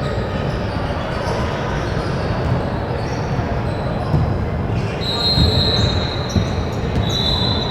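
Basketball game: a ball being dribbled on a gym floor over crowd chatter, with high sneaker squeaks about five seconds in and again near the end.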